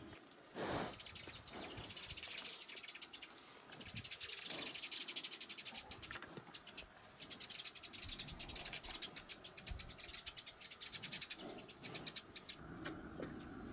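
Insects chirping in fast, high trills that swell and fade in waves, stopping shortly before the end. There is one dull thump about half a second in.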